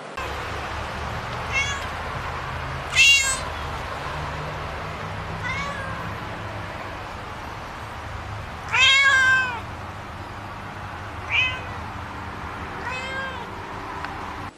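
A snowshoe cat meowing six times, each call separate, the loudest about three seconds in and a longer, drawn-out one about nine seconds in.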